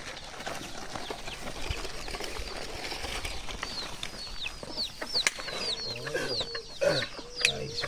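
Chickens in the yard: many short, high, falling peeps, coming thick from about three seconds in, with lower clucking calls near the end. Two sharp knocks stand out in the second half.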